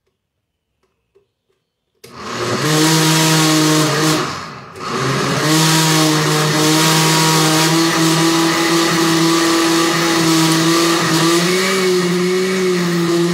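Electric countertop blender starting about two seconds in, blending a thick mixture with a steady motor hum; it cuts out briefly around four seconds, then starts again and runs steadily.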